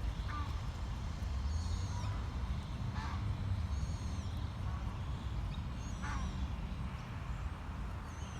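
Common moorhens calling: repeated short, high arched calls every second or two, with a few lower calls among them. A steady low rumble runs underneath.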